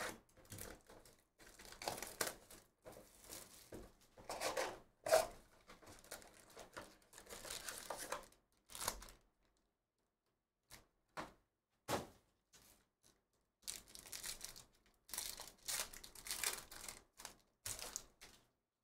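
Plastic shrink wrap and a cardboard hobby box being torn open and foil trading-card packs crinkling as they are handled and a pack is ripped open, in irregular bursts. A short lull about halfway through holds only a few light clicks.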